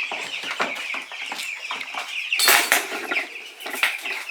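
A flock of young meat-bird chicks peeping constantly, with scuffling and wing flapping and one loud rustle about two and a half seconds in.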